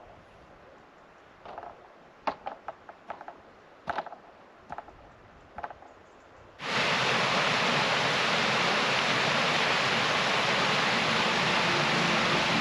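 Scattered light knocks and clicks from work on bamboo poles. About two-thirds of the way in, a sudden loud, steady rushing hiss begins and holds.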